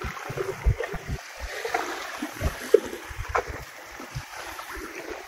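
Small waves lapping against the tubes of an inflatable boat, with irregular low knocks and slaps.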